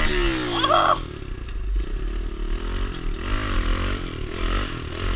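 Kawasaki KLX110 pit bike's small single-cylinder four-stroke engine revving while riding. Its pitch falls off in the first second, then rises and falls again about three seconds in.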